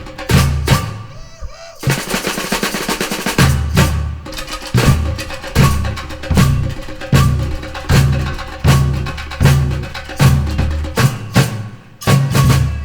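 Brazilian samba-reggae percussion ensemble playing: a snare drum roll about two seconds in, then surdo bass drums pounding a steady beat under snares and sharp wood-block-like clicks.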